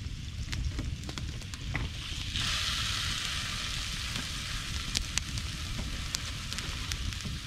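Whole rainbow trout laid on a hot griddle over a wood campfire, starting to sizzle suddenly about two seconds in and sizzling steadily after that. The fire crackles with sharp pops throughout.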